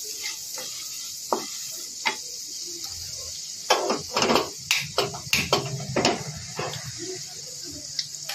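Hot oil sizzling steadily in a kadai as a tempering of mustard seeds, cumin and chana dal fries, the dal frying until it changes colour. A wooden spatula stirs and scrapes against the pan, with a run of louder scrapes and knocks about four to six seconds in.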